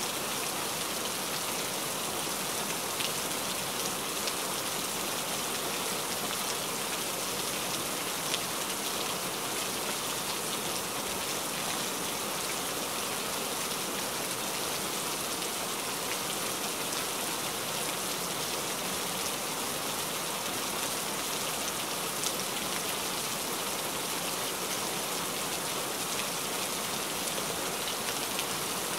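Steady rain falling: an even hiss with a few sharper drop ticks here and there.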